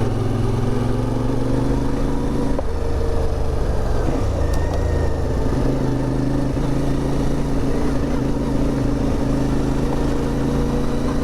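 CFMOTO 450MT motorcycle's parallel-twin engine running steadily while riding; the engine note drops about four seconds in, then holds steady.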